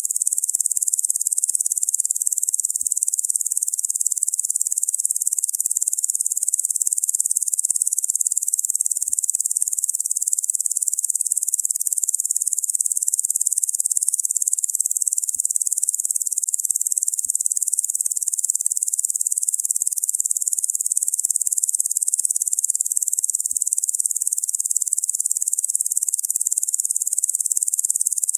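Steady, unbroken high-pitched insect buzzing, a dense chorus that holds the same level throughout.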